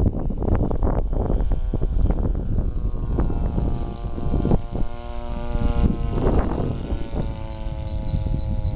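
RC model airplane's 26cc engine, converted to run on nitro (glow) fuel, running steadily in flight overhead, its tone coming through clearly from about three seconds in. Heavy wind rumble and buffeting on the microphone sits under it throughout.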